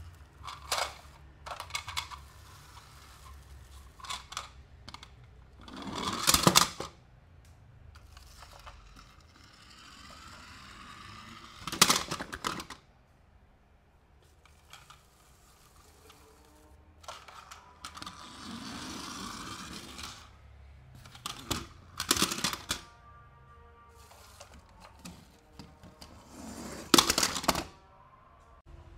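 Unboxing handling of toy cars and their packaging: sharp clicks and knocks a few seconds apart, the loudest about six, twelve, twenty-two and twenty-seven seconds in, with stretches of rustling in between.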